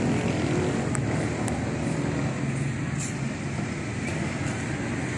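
Steady road traffic noise, with a couple of faint clicks about a second in.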